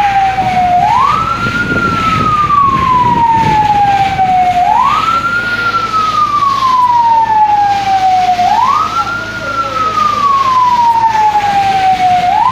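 Fire engine siren wailing: each cycle rises quickly in pitch, then falls slowly, repeating about every four seconds.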